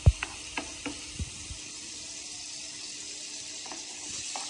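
Butter sizzling under potato-stuffed parathas frying on a hot non-stick plate, a steady hiss. A sharp knock right at the start, then a few lighter clicks in the first second and a half.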